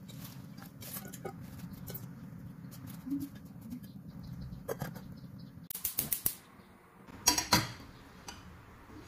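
Wet sweet potato leaves rustling as they are dropped into a stainless steel pot, with scattered soft clicks, over a steady low hum. Sharp metal clatters come about two-thirds of the way through and again shortly after, as the steel lid goes on and the pot is set on the gas stove.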